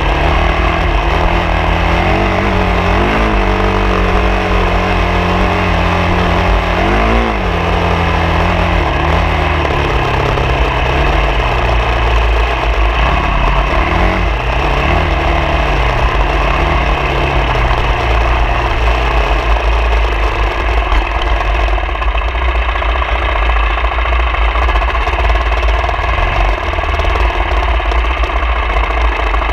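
Vehicle engine running while riding off-road, its pitch rising and dipping several times in the first half as it revs and shifts, over a steady heavy low rumble.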